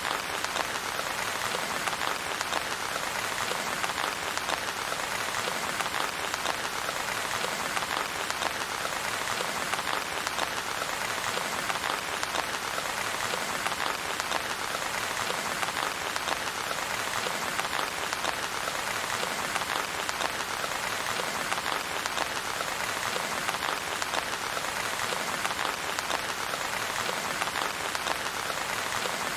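Steady rain falling, an even, unbroken patter with no thunder.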